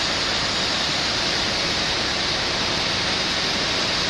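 Passenger coaches of a departing train rolling past the platform, a steady rushing noise without distinct wheel clacks.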